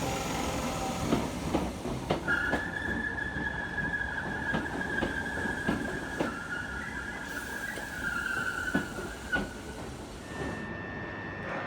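Electric multiple-unit train rolling slowly through the station, its wheels clicking over rail joints and points, with a high steady wheel squeal setting in about two seconds in and dying away near the end.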